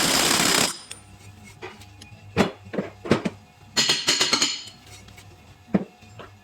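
Workshop clatter of metal tools and brake parts: a few separate knocks and clinks, with two short scraping rushes, one right at the start and one in the middle.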